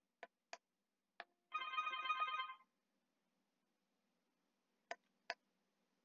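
Three sharp clicks, then an Akuvox intercom ringtone sounds for about a second as the doorbell places a call to the indoor monitor. Two more clicks come near the end.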